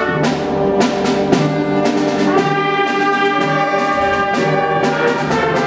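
Junior high school concert band playing full ensemble: brass and woodwinds holding chords, with repeated percussion hits.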